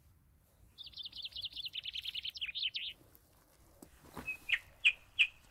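A songbird sings one fast trilled phrase of about two seconds, ending in a few falling notes. Near the end come several short, sharp clicks and rustles close by.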